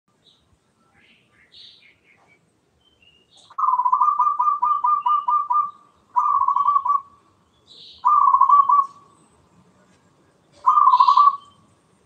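Zebra dove (perkutut) cooing: four rolling phrases of quick staccato notes, the first and longest about a second in, the later ones shorter. A few faint higher chirps come between them.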